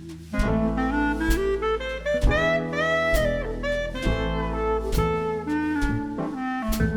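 Jazz background music: a saxophone playing a melody with bending notes over a drum kit beat.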